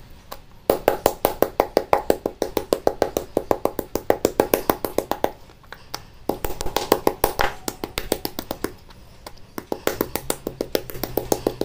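Wooden cobek (mortar) pounding chicken breast fillets flat on a plastic cutting board, standing in for a meat mallet: quick taps, several a second, in three runs with short pauses between.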